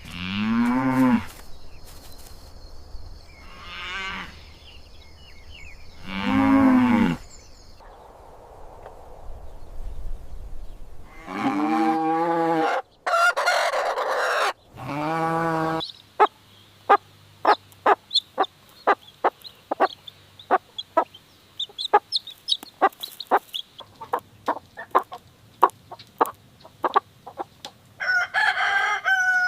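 Chickens: a rooster crowing several times, then a quick series of short clucks, about two or three a second, with another call near the end.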